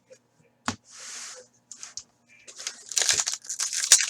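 Upper Deck hockey card pack wrapper being torn open and crinkled by hand. There is a click and a short swish about a second in, then a rapid run of crackling crinkles near the end.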